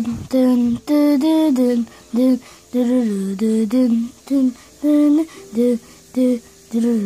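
A person humming a tune without words, in short separate notes, a few a second, that step up and down in pitch.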